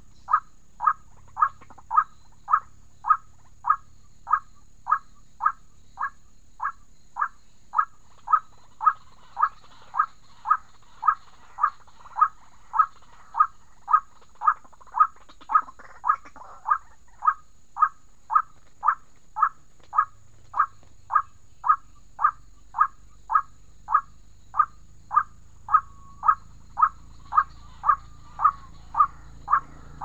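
White-breasted waterhen call, a short harsh note near 1 kHz repeated about twice a second at a very even pace.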